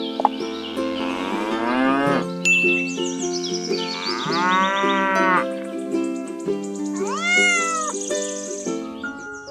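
Cows mooing and a cat meowing, as three drawn-out calls about a second in, midway and near the end, over background music.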